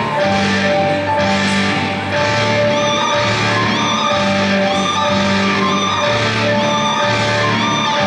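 Music with a steady low bass figure repeating about once a second.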